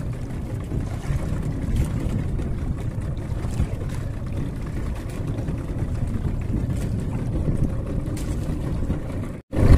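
Steady low rumble of a small outrigger fishing boat at sea: wind and water noise around the hull. It cuts out suddenly for an instant just before the end.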